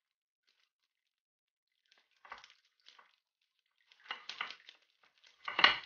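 Clear plastic sheet crinkling under a wooden rolling pin as cookie dough is rolled thin between the sheets, in a few short bursts, the loudest near the end.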